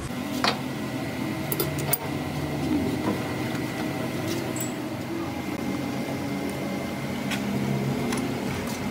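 Steady machine hum of running workshop machinery, with a few sharp metal clicks and taps as a truck differential pinion is handled and set into a lathe chuck.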